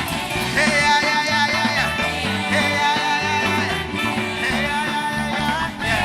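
A live band playing, with singing over it.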